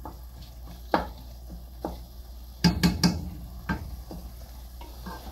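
A spatula stirring ground meat as it fries in a stainless steel pot: sharp scrapes and knocks against the pot, with a quick run of three louder knocks about halfway through, over a low sizzle.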